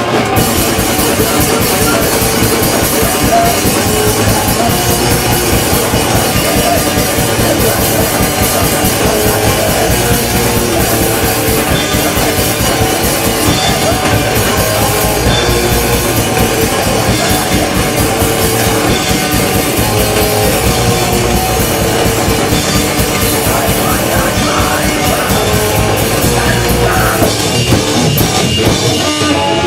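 A hardcore punk band playing live and loud: distorted electric guitars and bass over a fast-hit drum kit.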